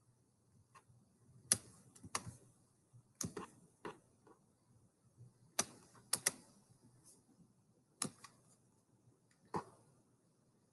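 Computer mouse button clicking: faint, sharp clicks at irregular intervals, a couple of them in quick pairs, as shapes are selected and dragged.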